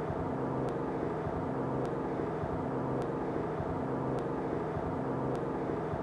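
Steady mechanical hum with several low, level tones, like distant urban traffic or machinery, with a faint high tick about once a second.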